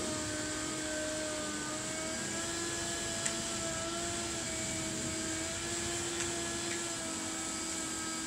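Worx corded electric dethatcher running as its tines rake the lawn, a steady motor whine whose pitch wavers slightly under load. Two sharp ticks, about three and six seconds in.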